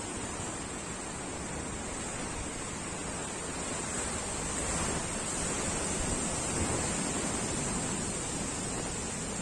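Sea surf washing onto the shore: a steady rush of breaking waves that swells a little in the middle and eases off again.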